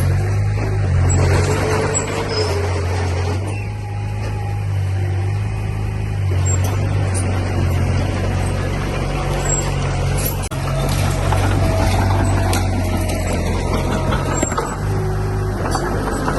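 Heavy diesel engine of earth-moving machinery running steadily under load, a loud low drone, with a few sharp clicks.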